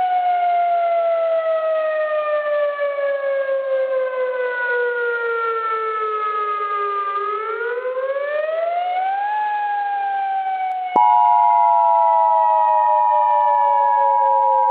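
Civil defense siren wailing: its pitch sinks slowly, climbs back up over about two seconds, then sinks again. About eleven seconds in, the steady two-tone EAS attention signal starts abruptly and sounds over the siren.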